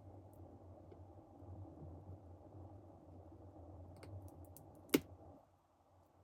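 Faint small clicks of tiny watch parts and tools being handled while a Seiko crown and stem are put back together, with one sharp click just before the five-second mark. A low steady hum underneath stops suddenly shortly after that click.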